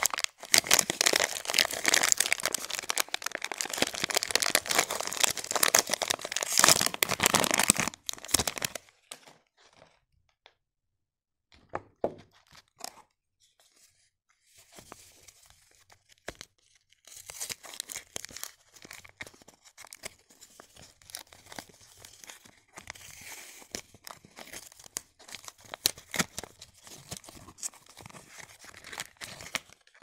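Crimped plastic soap wrapper crinkled and torn open by hand, a loud dense crackle for about eight seconds. Then near quiet with a few soft clicks, and from about halfway on, softer crackling and rustling of packaging as a small cardboard soap box is handled and opened.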